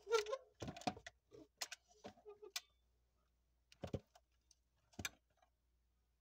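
Small clicks and knocks from hands handling a 1:18 scale diecast Audi A6L model car. A quick run of clicks comes in the first two and a half seconds, then two single clicks about a second apart near the end.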